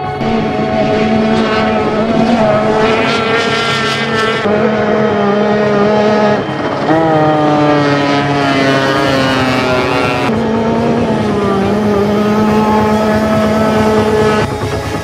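Outboard engines of racing powerboats running at full speed, a steady high engine note whose pitch slides up and down as boats pass. The sound changes abruptly several times.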